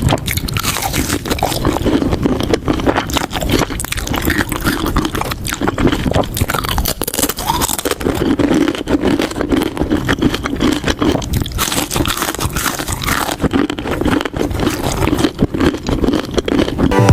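Close-miked eating sounds: a continuous run of crunchy bites and chewing.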